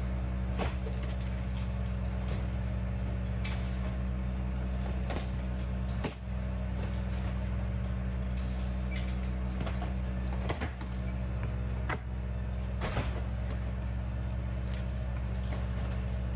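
A steady low machine drone, with scattered knocks and thuds as suitcases are slid and set down on the floor of an aircraft's cargo hold.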